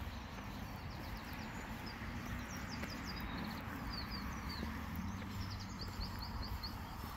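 Footsteps of someone walking along a garden path, with a small bird singing runs of short, high, repeated chirps over steady outdoor background noise.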